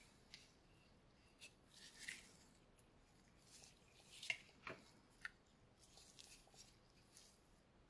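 Faint handling sounds: light rustling and a few small clicks of small plastic camera parts and adapters being handled, the sharpest click about four seconds in.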